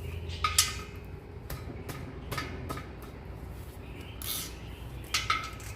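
Metal hand tools clinking on metal: a handful of separate sharp clinks, each with a short ring, spaced irregularly.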